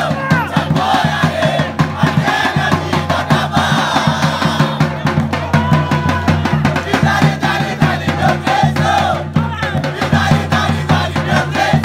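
A crowd of football supporters chanting and singing together over fast, steady drumming.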